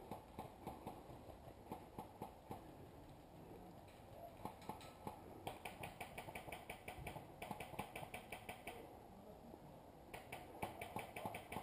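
Faint airsoft guns firing in rapid runs of clicks, one long run starting about five and a half seconds in and another near the end.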